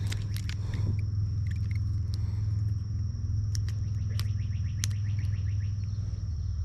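A steady high insect drone over a steady low rumble. Scattered light clicks and a quick run of small ticks come as a jointed hard swimbait is handled and clipped onto the snap of a baitcasting rod's line.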